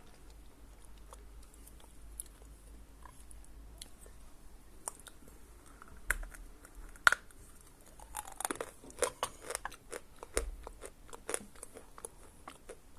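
A lump of Khrapovsky edible chalk being bitten and chewed. A couple of sharp cracks come about six and seven seconds in, then a run of crisp crunches as the chalk is chewed.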